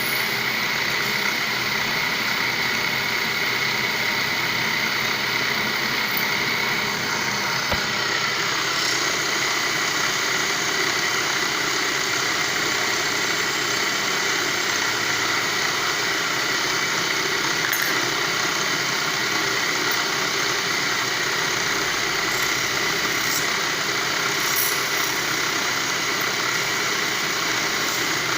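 Motor-driven polishing machine running steadily, with a constant high whine over an even mechanical hum.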